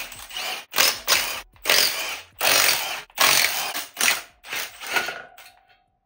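Cordless impact wrench hammering the clutch pressure-plate bolts loose on the flywheel. It runs in a quick series of short bursts, about nine, each about half a second long, which die away about five seconds in.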